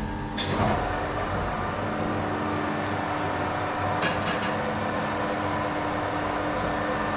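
A metal lathe running with a steady motor hum while turning a boss for an exhaust mount. The cutting noise swells about half a second in, and a brief metallic clatter comes about four seconds in.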